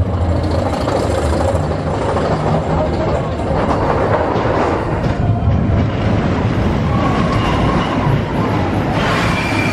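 Expedition Everest roller-coaster train running along its steel track, a steady rumble and clatter of the wheels on the rails. Near the end a high, steady wheel squeal sets in.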